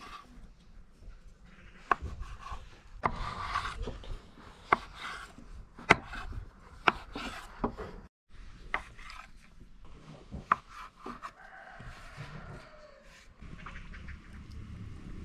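Irregular sharp knocks and clicks, about a dozen of them, with rubbing and scraping noise between them, like hands working with hard objects.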